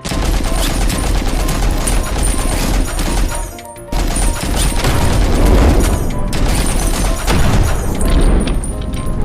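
Loud music mixed with a dense run of rapid bangs, crashes and booms like gunfire and explosions. It starts abruptly, drops out briefly about three and a half seconds in, then resumes.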